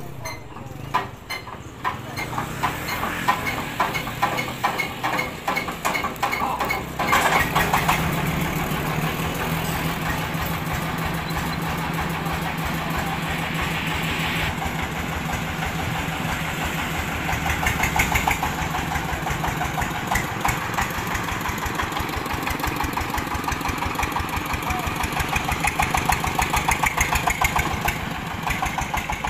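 Diesel engine of a mobile rice-mill vehicle being hand-cranked: it turns over with quickening chugs, catches about seven seconds in, and settles into a steady chugging run. The engine note swells again near the end.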